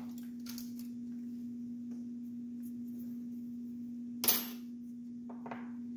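Objects being moved about on a cluttered workbench, with one sharp clink of something hard set down about four seconds in, a few faint rustles, and a steady low hum underneath.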